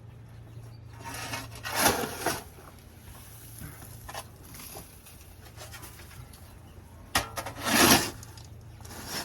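A shovel scraping and scooping up chicken manure mixed with wood shavings from the coop floor, two long scrapes, the second just after a sharp click.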